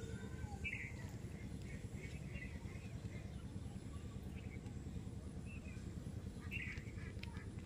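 Outdoor ambience: small birds give short chirping calls every second or two over a steady low rumble.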